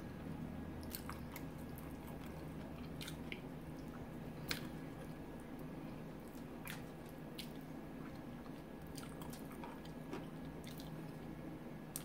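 Close-up chewing and wet squishing of sauced chicken wings being eaten and pulled apart, with scattered small sharp clicks now and then.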